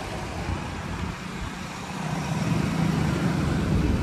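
Engine and road noise from riding on a motorcycle in city traffic, with a steady low rumble that grows louder about halfway through.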